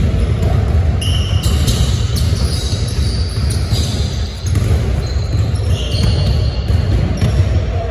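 Basketball court noise: balls bouncing over a steady low rumble, with short high squeaks that come and go.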